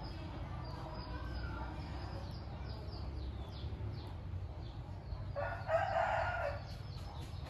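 A rooster crows once, for about a second, a little past the middle. Faint high chirps repeat throughout.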